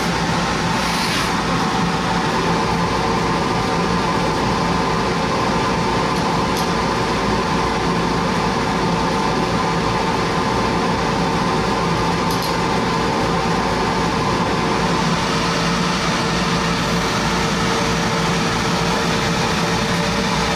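Laser cutter running steadily while cutting acrylic, its exhaust blower and air assist giving a constant whirring hum with a steady mid-pitched whine.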